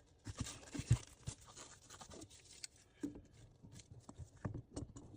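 Sink drain pipe parts being handled and fitted together by hand: scattered clicks, scrapes and rubbing as the pieces are slid and tightened.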